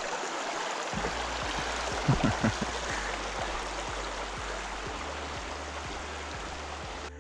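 Steady rushing noise with a few brief low thumps about two seconds in.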